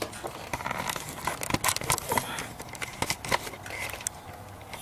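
Irregular clicks, taps and rustles of the recording camera or phone being handled and set up on a stand, close on its microphone.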